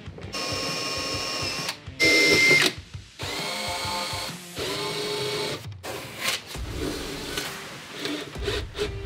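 Cordless drill/driver running in four short spurts of about a second each, backing out the mounting-clip screws; the second spurt is the loudest and highest-pitched.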